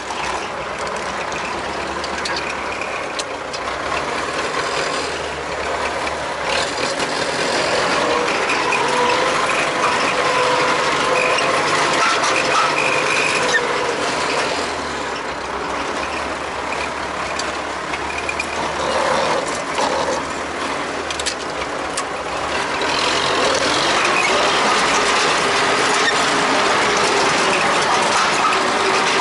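MTZ-80 tractor running, with a steady metallic clatter and rattle of machinery. The noise grows louder about seven seconds in and again near the end.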